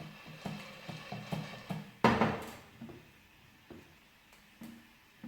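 A pan of popcorn kernels being shaken on a stovetop burner, the pan and kernels knocking and rattling several times a second. About two seconds in comes one much louder metallic clatter, after which the shaking stops and there are only a few scattered clicks.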